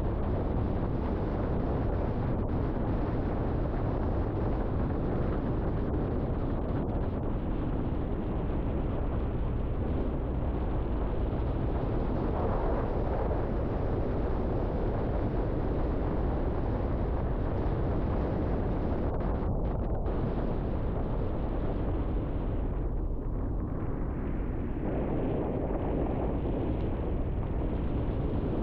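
River water rushing steadily, a deep, even wash of noise without breaks.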